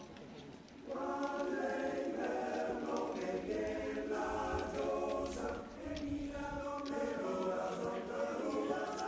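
Choir singing unaccompanied in several parts, in held chords. The singing drops away at the start and comes back in about a second in, with a short breath-like dip near the middle.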